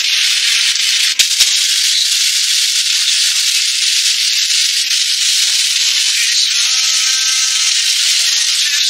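Braised fish sauce sizzling and bubbling steadily in a stainless steel pan, a dense crackling hiss, with two sharp clicks about a second in.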